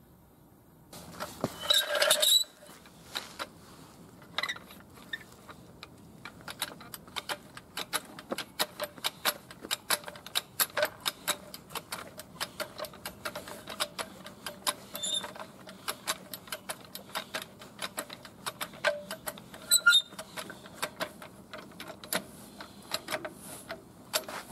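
Hydraulic floor jack being set under the tractor's front axle with a metal rattle about a second in, then pumped by its long handle: a steady run of small clicks and knocks, a few each second, as the flat-tyred front end is raised.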